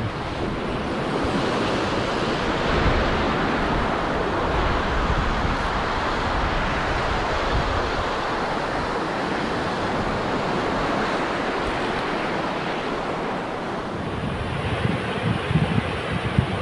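Surf breaking and foam washing over the shallows, a steady rushing noise, with wind on the microphone. Near the end the sound shifts to gustier wind buffeting the microphone.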